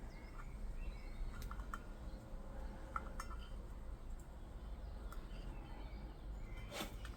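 Faint clicks and light handling noise as a rubber seal is pressed by hand into a Brembo brake caliper's piston bore, over a low steady hum, with a few short faint high chirps.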